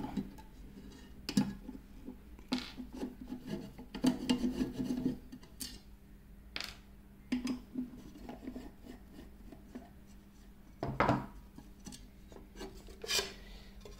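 A screwdriver backing out the small screws of an aluminium case lid: scattered clicks and rubbing scrapes of metal on metal. Near the end the aluminium lid is gripped and handled, with a louder knock about eleven seconds in.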